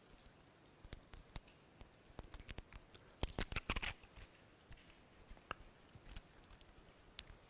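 Prefilled communion cup packet being opened by hand: its plastic and foil seals peeled back with crinkling and small clicks, loudest in a cluster about three to four seconds in.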